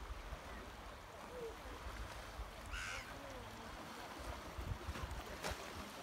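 Calm sea lapping gently at a shallow shoreline, with a low wind rumble on the microphone and faint distant voices. A brief high call rings out about halfway through.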